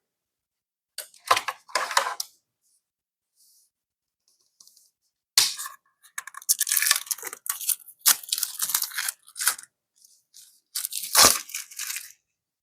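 Packaging being torn open by hand, in three spells of rough tearing and crackling with short pauses between.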